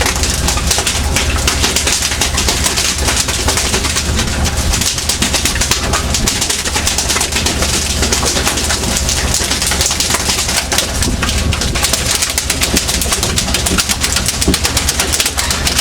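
Fishing boat under way: a steady low engine hum beneath loud, continuous rushing noise.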